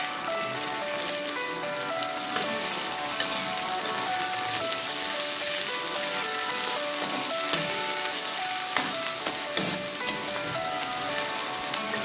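Sliced onions sizzling as they fry in hot oil in a pan, with a steady crackling hiss. A slotted metal spatula stirs them, knocking sharply against the pan a few times, mostly in the second half. Soft background music with a melody plays under it.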